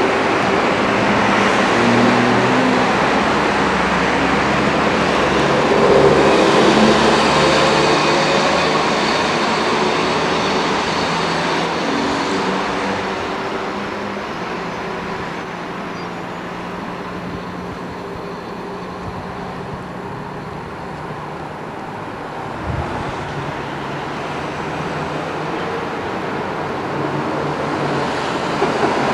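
Road traffic on a busy multi-lane road: a continuous rush of cars and trucks passing, swelling about six seconds in, easing off through the middle and building again near the end.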